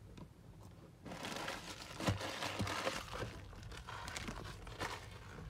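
Plastic trading-card packaging crinkling and crumpling in the hands, starting about a second in, with a few sharper crackles.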